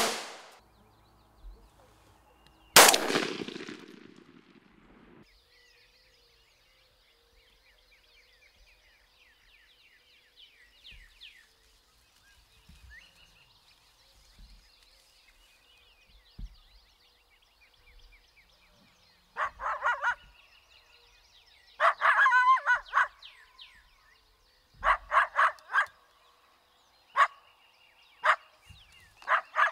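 Rifle shots: the echo of one rings on at the start, and another shot about three seconds in echoes for a couple of seconds. From about twenty seconds in comes a string of short, loud barking yips in several bursts.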